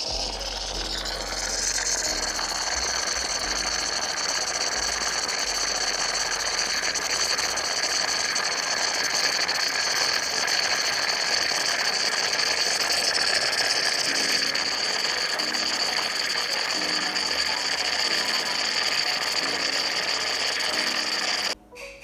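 DeLonghi EC9 steam coffee maker hissing out steam steadily, with a high whistle in the hiss, cutting off suddenly near the end.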